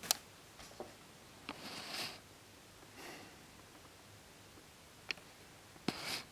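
Quiet room tone broken by a few faint sharp clicks and short rustles, like small handling or movement noises.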